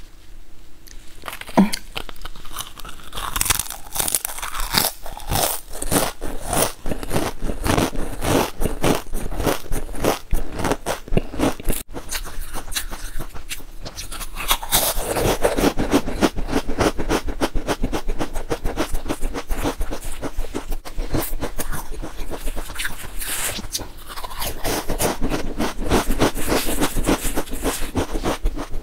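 Loud, crisp crunching of stackable potato crisps being bitten and chewed, with sharp crunches following each other quickly. The runs of crunching are densest from about halfway through and again near the end.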